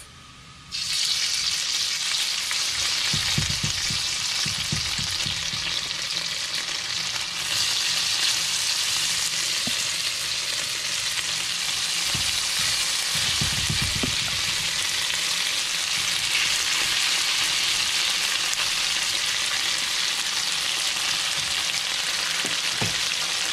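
Beef strips searing in hot oil in a wok, a steady loud sizzle that starts about a second in as they brown. A spatula stirs and knocks against the wok a few times.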